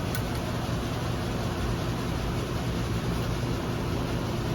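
Steady low mechanical hum under an even hiss, unchanging throughout.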